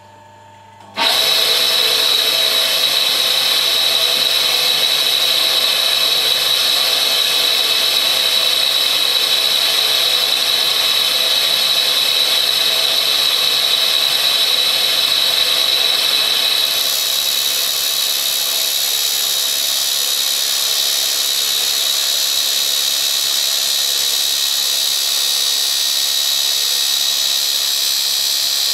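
Clarkson tool and cutter grinder starting up about a second in, then its reinforced cutoff wheel grinding the gullets of a high-speed steel end mill: a loud, steady grinding hiss with a high whine, changing slightly partway through.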